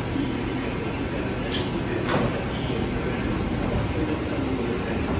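SMRT C751B train doors and platform screen doors sliding open, with two sharp clicks about half a second apart, over the steady hum of the stopped train.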